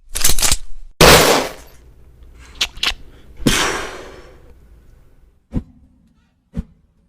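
Performed gunfire sound effects. A cluster of sharp bangs comes first, then a louder bang about a second in that rings out, two quick clicks, and another ringing bang. Single short knocks follow, about a second apart.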